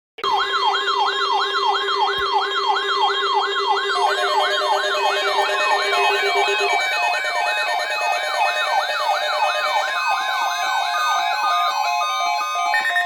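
Electronic emergency siren sound from an alert broadcast: a fast up-and-down yelp sweeping about three times a second, layered with other steady and stepping electronic tones. Near the end it gives way to a steady high tone.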